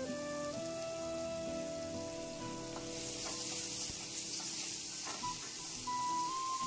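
Chopped onions sizzling as they fry in a stainless steel kadai, stirred with a spatula; the sizzle grows louder about three seconds in. Background music with held tones plays underneath.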